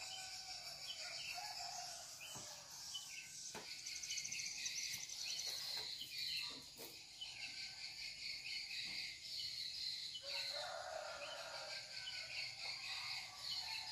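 Night insects, crickets among them, chirring steadily with repeated short high chirps. A few faint clicks, and a lower call about ten seconds in.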